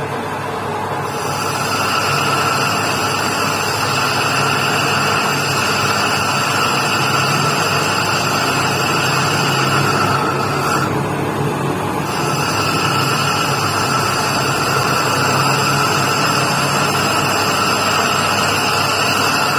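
Metal lathe running and cutting a motorcycle wheel hub, with a steady low hum and a steady high-pitched whine from the cut. The whine stops for about a second midway, then resumes.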